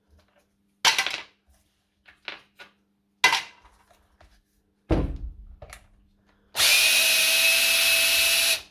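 A power screwdriver spins for about two seconds near the end, running screws out of the rotary hammer's plastic housing. Before that come several sharp clicks and knocks as the driver and loose screws are handled.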